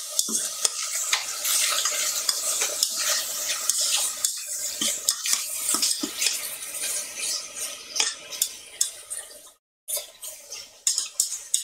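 Beef goulash searing without fat in a very hot stainless steel AMC pot: a steady sizzle, with a utensil stirring the meat and clicking and scraping against the pot. The sizzle eases off after about eight seconds and cuts out briefly near the end.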